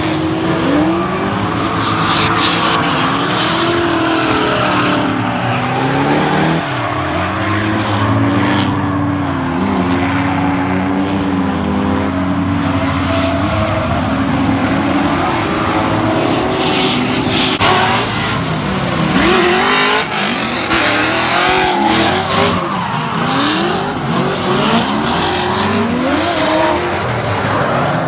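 Drift cars sliding through the corners, their engines revving up and down while the tyres squeal. Several engines can be heard at once, rising and falling in pitch.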